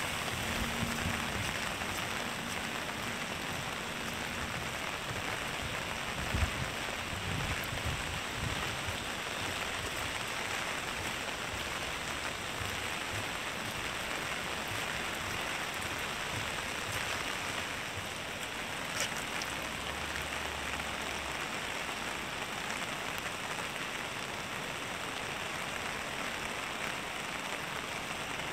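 Steady rain falling on pavement and water, an even hiss with no letup. A few dull low thumps come in the first several seconds, the loudest about six seconds in.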